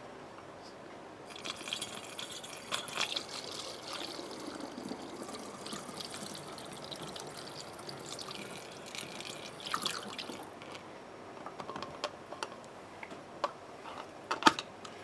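Ginger brandy being poured through a funnel into a glass bottle: a steady trickling pour that starts about a second in, with the bottle filling as it goes.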